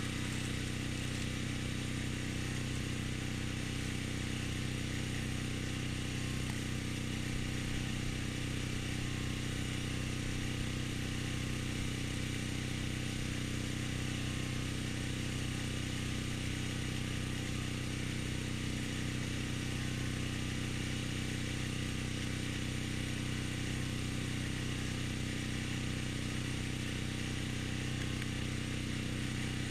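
A small engine running steadily at constant speed, an unchanging drone.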